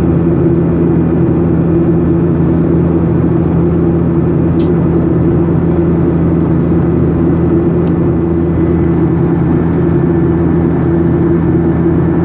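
Boeing 737-800's CFM56 jet engines droning steadily in the passenger cabin, a loud even rush with a low hum and a higher tone held steady under it: the engine noise the passenger found strange.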